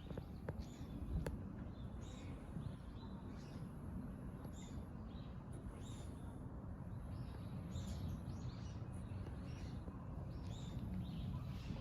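Small birds chirping in short, scattered calls over a steady low outdoor rumble, with a couple of faint clicks in the first second or so.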